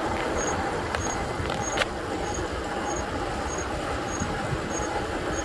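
Razor 750-watt electric motorbike being ridden: a steady rumble of tyres and wind, with a faint high pip repeating evenly a bit under twice a second.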